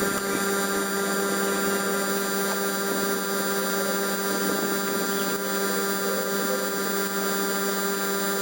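Refrigerator compressor running with a steady electric hum, the same pitch throughout.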